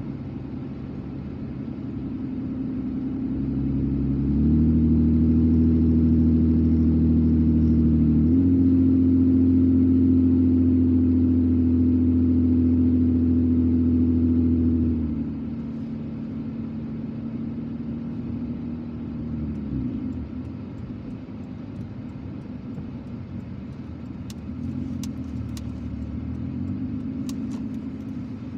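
Car engine and road noise heard from inside the moving car: a steady low drone that steps up in pitch and grows louder about four and eight seconds in, then falls back about fifteen seconds in.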